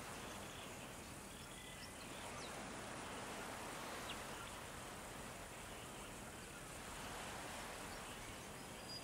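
Faint, steady wash of distant ocean surf breaking on a beach, gently swelling and easing, with a few faint high bird chirps.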